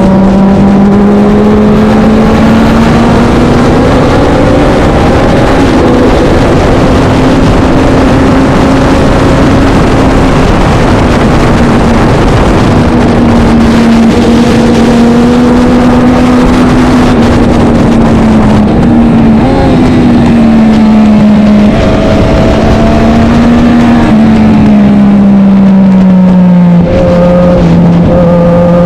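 Racing motorcycle engine running hard at steady high revs, its pitch wandering up and down with speed. It drops lower about two thirds of the way through and climbs again near the end.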